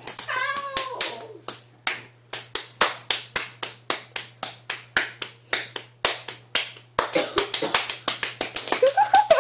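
Open hands slapping bare skin over and over in a quick, steady rhythm, about three or four slaps a second.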